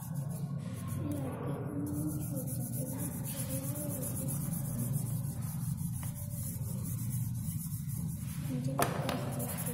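Charcoal stick rubbing and scratching across drawing paper in repeated strokes, over a steady low hum, with one sharp click near the end.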